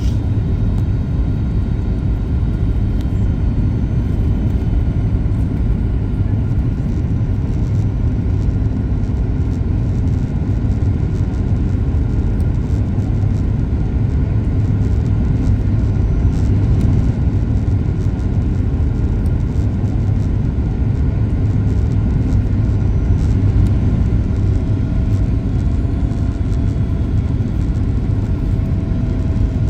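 Cabin noise inside a Boeing 737 MAX 8 slowing on the runway after touchdown: a steady low rumble of the jet engines and of the wheels rolling on the pavement. A faint thin whine comes in near the end.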